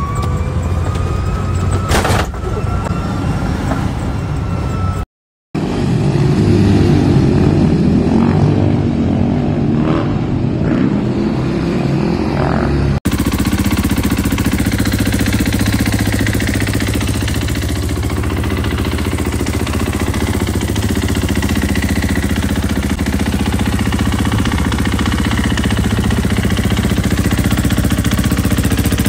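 A car engine accelerating with rising pitch, easing about two seconds in. After a cut comes a louder, rougher low rumble, then a Husqvarna 501 dirt bike's single-cylinder four-stroke engine running at a steady idle for the last half of the stretch.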